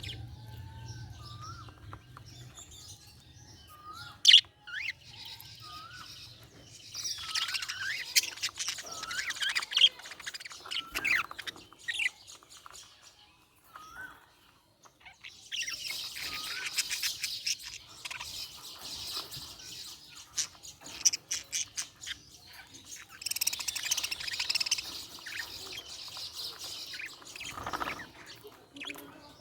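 Budgerigars chirping and chattering: short rising chirps at first, then three bursts of fast, high warbling chatter with quieter gaps between them.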